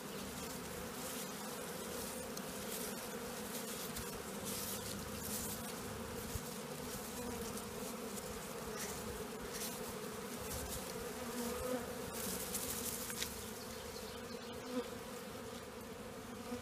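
Swarm of honeybees buzzing steadily, with soft rustling now and then as a bundle of grass sweeps bees along the hive box toward its entrance.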